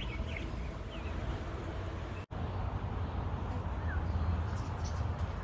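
Steady low outdoor background rumble with a few faint bird chirps near the start; the sound cuts out for an instant a little over two seconds in.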